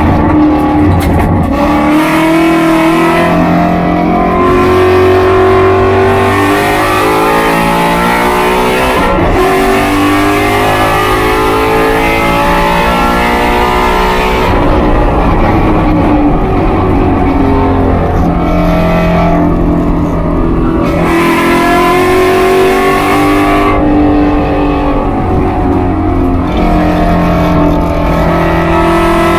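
Race car engine heard from inside the cockpit under hard acceleration: it climbs in pitch for about fourteen seconds to near 7,300 rpm, then drops suddenly as the car brakes and slows for a corner, and climbs again as it accelerates out.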